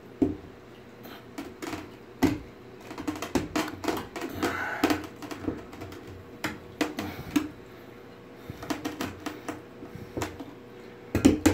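Small aquarium powerhead running submerged in a bathtub, a faint steady hum under irregular, uneven clicks and taps like typing.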